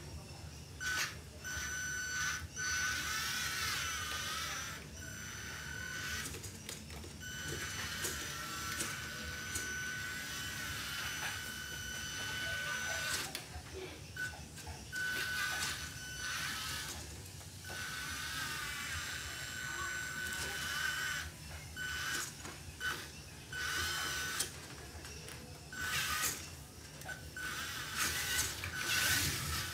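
1/14-scale RC truck's electric drive motor and metal gear drivetrain whining as the truck drives, a steady high whine that cuts in and out many times as the throttle is applied and released.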